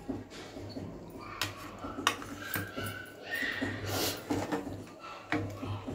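Stainless steel plates and bowls clinking and knocking as they are handled: a string of light, irregular metallic clicks.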